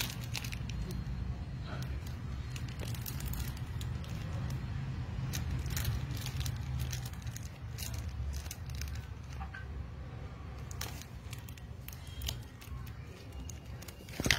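A steady low hum, with scattered light clicks and knocks from handling that grow more frequent in the last few seconds.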